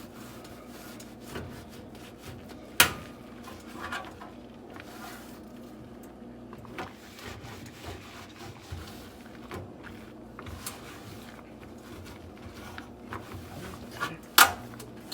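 Scrubbing and scraping on a grimy kitchen stove, with scattered small clicks and two sharp knocks, one about three seconds in and one near the end.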